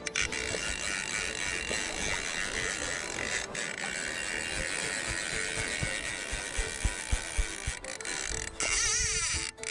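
Fly reel's click-and-pawl drag ratcheting as line is pulled off it, over the rush of river water and wind. A few low knocks come in about six to seven seconds in.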